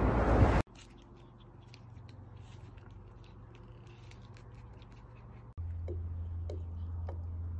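Pomeranian puppy nibbling at a person's fingers, giving three short squeaks about half a second apart over a steady low hum. Before that, a brief rush of wind noise cuts off under a second in, followed by faint ticks.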